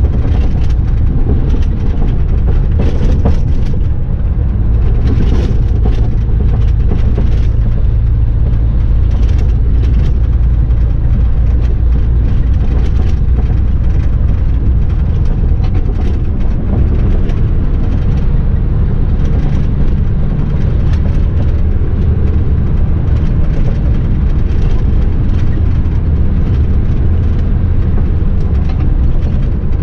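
Mercedes-Benz truck's diesel engine droning steadily, heard from inside the cab while driving, with scattered brief knocks and rattles over the cracked road surface.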